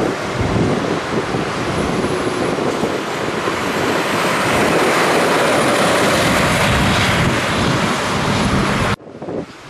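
Scania truck on the road: a steady rush of engine, tyre and wind noise that swells midway and drops off abruptly about nine seconds in.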